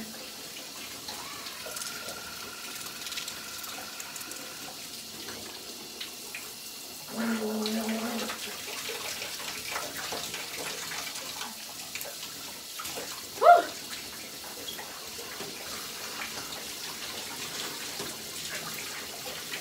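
Shower water running steadily, spraying onto a person and the stall as she washes. A short low pitched sound comes about seven seconds in, and a brief loud pitched sound comes about thirteen seconds in.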